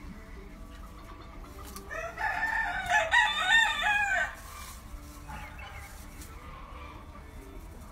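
A game rooster crowing once, a single crow lasting about two and a half seconds, starting about two seconds in.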